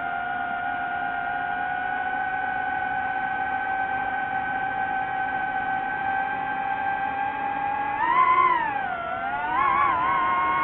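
DJI FPV drone's motors whining at a steady pitch that creeps slowly upward. About eight seconds in, the pitch swings up and down and the whine gets louder as the throttle is worked.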